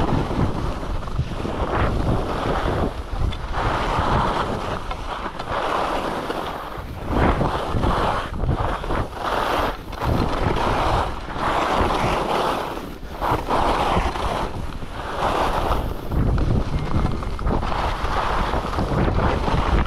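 Skis running and scraping over packed piste snow on a downhill run, swelling and fading every second or two, under wind rushing over the camera microphone.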